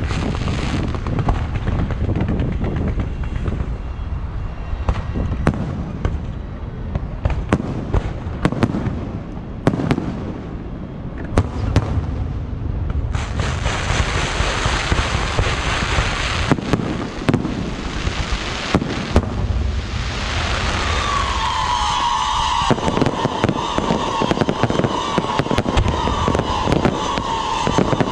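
Fireworks going off: repeated booms and sharp cracks, then from about halfway a dense, continuous crackling hiss. A steady high whistle joins about two-thirds of the way in.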